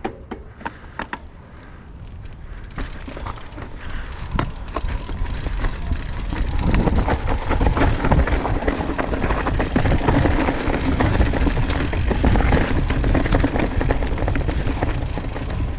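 Mountain bike rolling down a rocky trail: tyres and frame rattling and clattering over rocks, with wind rumble on the microphone. Sparse clicks and knocks at first, then a dense, louder rattle from about six seconds in as the pace picks up, easing near the end.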